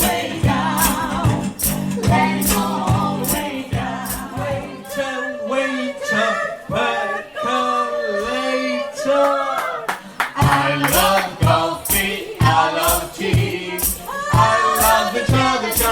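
Vocal trio singing in close harmony over a bass line and steady hand percussion. About five seconds in the bass drops out, leaving the voices alone; it comes back about ten seconds in.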